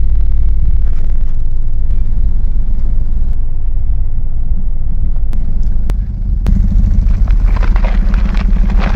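Loud, very deep bass from subwoofers: a steady low droning rumble. About six and a half seconds in, a harsher rattling, crackling noise joins it.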